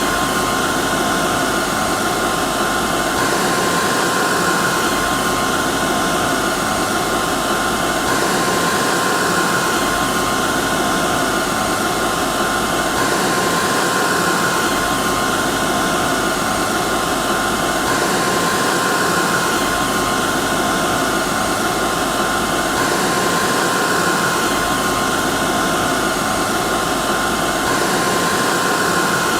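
Hair dryer running steadily: a rush of blown air with a steady whine near 1 kHz on top.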